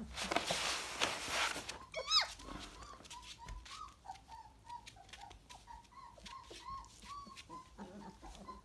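Young puppies whimpering: a stream of short, high squeaky whines, several a second, after one louder yelp about two seconds in. A burst of rustling comes at the start.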